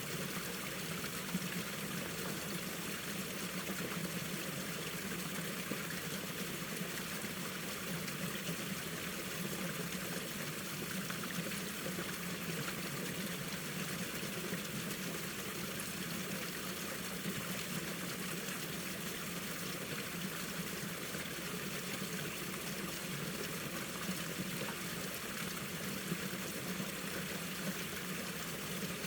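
Mountain valley stream flowing, a steady, unbroken rush of running water.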